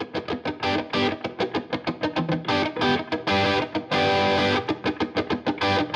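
Music with a fast, rhythmic electric guitar part.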